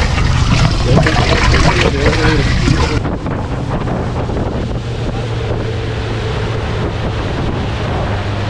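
Boat's outboard motor running steadily as the boat travels, with wind on the microphone. The wind hiss drops away suddenly about three seconds in, leaving the motor's steady hum.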